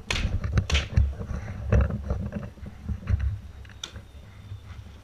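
Sharp scattered pops of paintball markers firing and paint hitting, the loudest in the first second, over a low wind rumble on the camera microphone.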